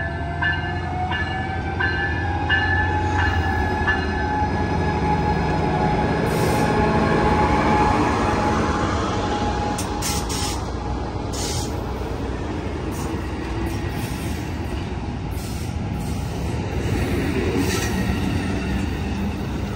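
Amtrak passenger train, hauled by Siemens SC44 Charger diesel locomotives with bilevel cars, rolling past along the platform: a steady low rumble of engine and wheels, with a high steady tone over roughly the first ten seconds, then the clatter and rush of the cars going by.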